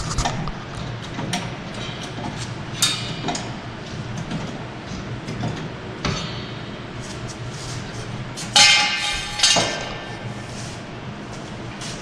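Metal clinks and knocks of tools on metal, with two louder ringing metallic strikes about a second apart near the end, over a steady low hum.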